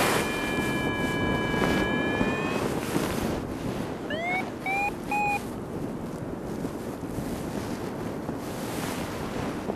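Airflow on a paraglider pilot's microphone in flight, a steady rushing wind noise. A steady whine of several tones fades out after about two and a half seconds, and about four seconds in come three short beeps, each rising in pitch, of the kind a variometer gives in lift.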